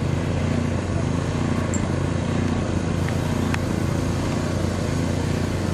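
Steady low engine hum with a constant drone, over outdoor noise.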